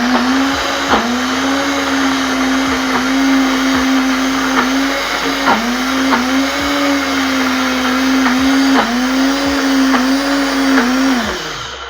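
Silver Crest blender motor running as it grinds roasted peanuts, with no oil added, into peanut butter. The motor pitch dips briefly a few times under the thick load, then the blender winds down near the end.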